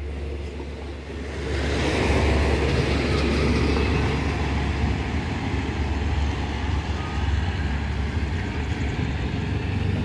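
Coaches of a departing passenger train rolling on the rails: a steady low rumble that swells with a wider rush of noise about a second and a half in, then holds.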